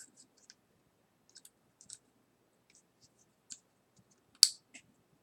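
Small hard-plastic toy pieces clicking and tapping as a vinyl figure's accessory is handled and tried in place, with light scattered clicks and one sharper, louder click about four and a half seconds in.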